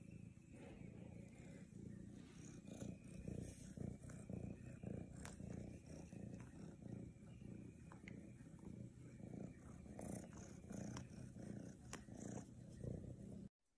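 A domestic cat purring steadily close to the microphone, a soft low pulsing rumble. It cuts off suddenly near the end.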